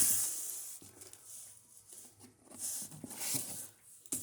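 Comic books being handled: soft paper rustling and sliding as one issue is set aside and the next one is drawn out, loudest in the first second, then fainter handling noises.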